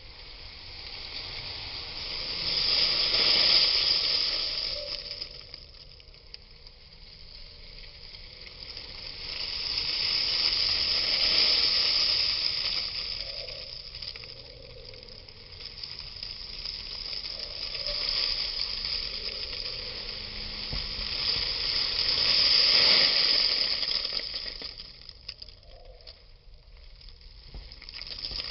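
Dried herb leaves sliding out of a plastic tub and falling onto a cloth: a dry rustling hiss that swells and fades in several waves as the tub is tipped.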